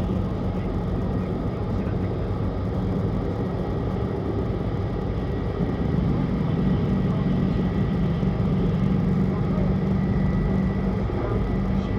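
Steady running noise of a Tohoku Shinkansen Hayabusa train, heard from inside the passenger cabin: an even low hum with a faint thin whine above it. It grows slightly louder about halfway through.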